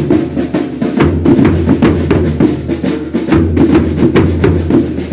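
Marching band percussion playing a steady, busy march beat: a JB bass drum, snare drums and a pair of clashing hand cymbals.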